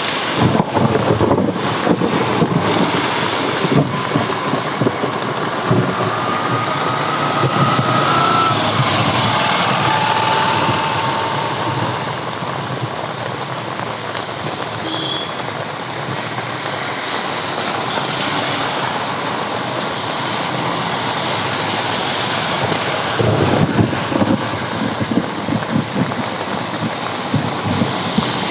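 Heavy, steady rain mixed with road traffic, with rumbling, crackling thunder in the first few seconds and again near the end.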